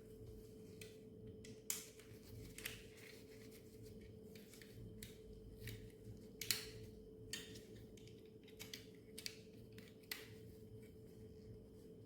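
Faint, irregular clicks and short scrapes of small plastic toy bulldozer parts being handled and fitted together, over a steady faint hum.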